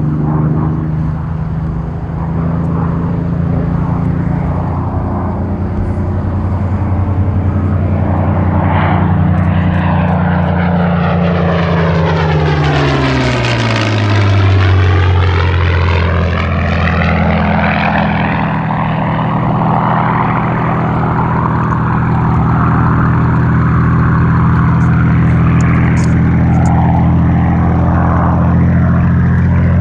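Supermarine Spitfire's Rolls-Royce Merlin V12 engine flying past: the engine note drops in pitch as the aircraft passes, roughly halfway through, with a sweeping whoosh that rises toward the pass and falls away after it.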